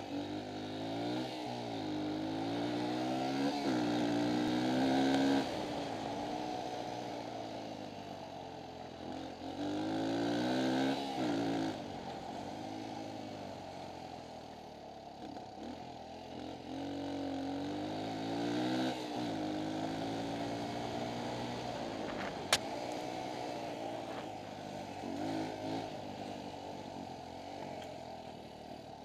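Suzuki dirt bike engine under way, its revs climbing and dropping back again and again as the rider accelerates and backs off. A single sharp click comes about three-quarters of the way through.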